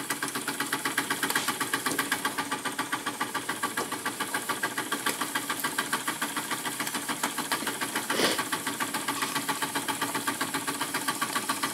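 Two small Retrol model steam engines, a horizontal engine driving a dynamo and a beam engine, running together under steam: a fast, even beat of exhaust puffs and mechanical clatter, with one brief louder pulse about eight seconds in.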